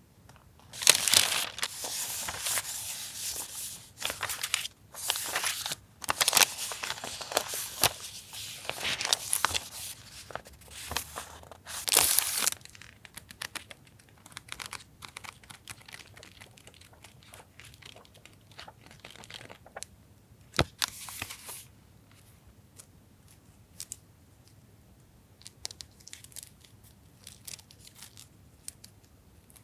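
Crinkly product packaging being handled and torn open, in loud rustling stretches for about the first twelve seconds. After that come lighter handling with scattered small taps and clicks, and one brief rustle about twenty seconds in.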